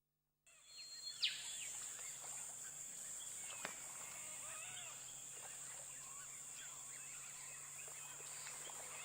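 Birds chirping over a steady, high-pitched insect drone, with one sharp, loud falling chirp about a second in.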